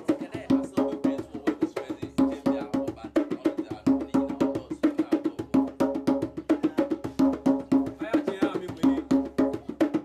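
A djembe played by hand in a fast, steady, repeating rhythm of quick strokes, the drumhead ringing with a clear pitch under each stroke.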